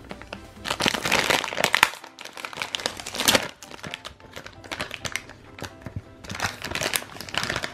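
Plastic foil blind-bag packet crinkling and rustling in the hands as it is opened, in several uneven bursts of crackly rustling.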